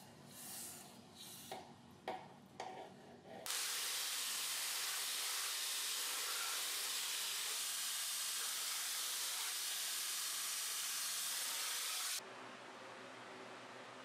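Red-hot steel blade in a quench tank, crackling and sizzling in short bursts for the first few seconds. Then a knife-making belt grinder's belt runs with a loud, steady hiss for about eight seconds and cuts off suddenly, leaving a quieter steady hum.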